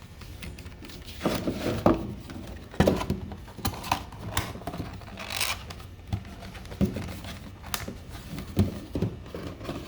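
Cardboard box being folded and its flaps and lid tucked into place: irregular creasing, scraping and taps of board against board, with a longer rustle about five seconds in.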